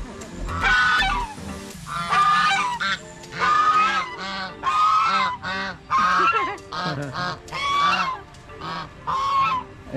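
Domestic white geese honking, a run of about nine loud, harsh calls at roughly one a second.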